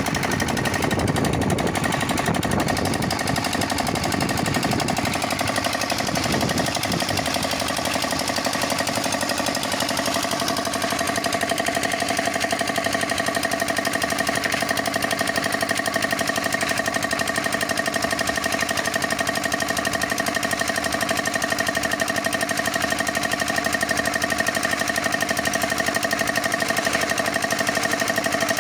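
Concrete mixer running with a fast, continuous mechanical rattle. It is heavier and lower for the first several seconds, then settles into a steady run with a held whine.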